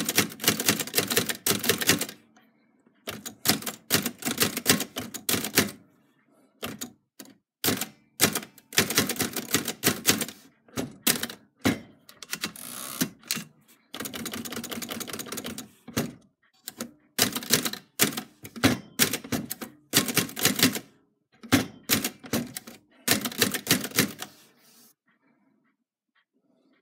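Manual typewriter typing: quick runs of sharp key and type-bar strikes against the platen, broken by short pauses. The typing stops near the end.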